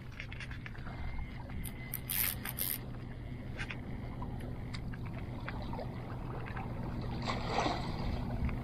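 A steady low motor hum, with scattered light clicks over it.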